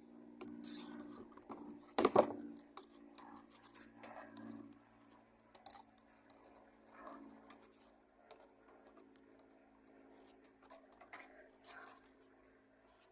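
Scissors snipping the Kevlar yarn and binder string of an ADSS fibre-optic cable, with scattered clicks and rustling as the cable is handled; a sharp click about two seconds in is the loudest. A steady low hum runs underneath.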